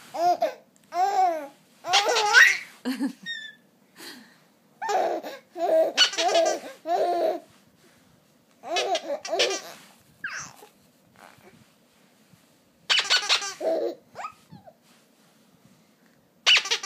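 Baby laughing in about seven separate fits, each a burst of bubbling giggles and squeals with short pauses between them.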